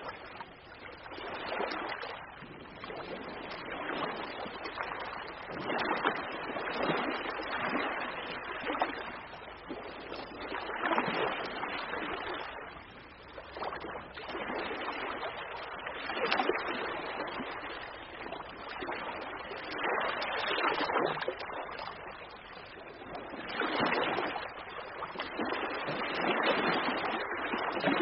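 Ocean waves breaking and washing on the shore, a rushing noise that swells and falls away every few seconds.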